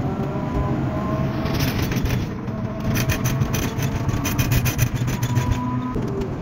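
Ride noise inside a moving vehicle: a steady low engine drone with road noise, and fast rattling between about one and a half and five and a half seconds in.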